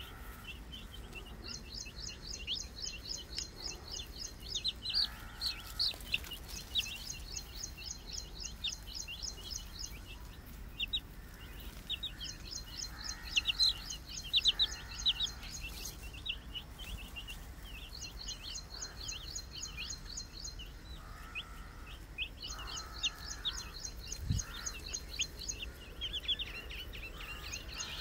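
Baby chicks peeping constantly in short, high, shrill notes. A rapid, very high ticking trill comes and goes in bursts of two to three seconds behind them, with a few lower, fuller calls now and then.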